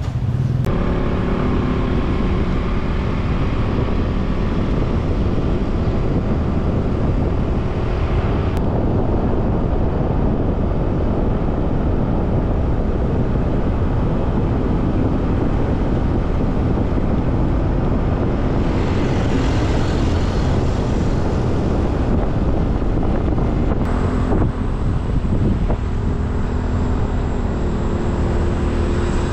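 Steady rushing road and wind noise from a moving vehicle, heavy at the low end, with wind buffeting the microphone. The noise changes abruptly a few times.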